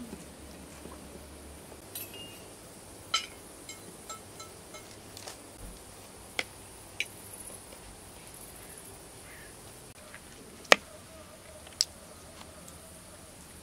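Cutlery clinking on ceramic plates: a fork and spoon tapping and scraping against dishes in a scattering of sharp, irregular clinks, the sharpest two about three-quarters of the way through, over a faint steady high hiss.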